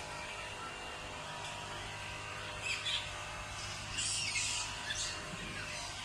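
Fruit bats (flying foxes) calling from their roost: short, high squeaky calls, loudest in clusters about three, four and five seconds in, over a steady din of more distant calls.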